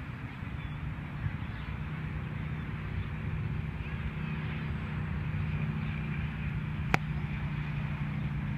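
A steady low hum under a constant outdoor hiss, with a single sharp click about seven seconds in.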